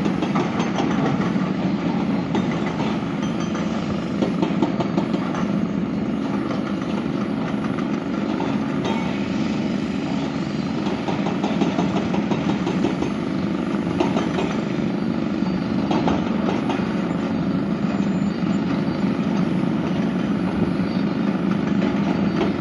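Heavy diesel engine of a large construction machine running steadily.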